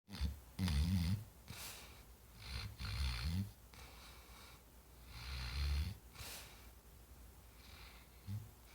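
Sleeping dog snoring: three long snores about two and a half seconds apart, with a short, weaker one near the end.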